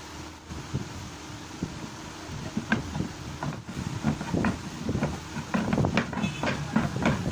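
Cricket bat being turned over and over on the bench as thread is wound onto its handle: light knocks, ticks and rubbing that grow busier over the last couple of seconds, over a steady background hiss.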